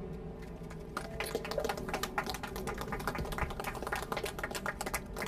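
A small crowd of wedding guests applauding, the clapping starting about a second in and continuing as many quick, separate claps.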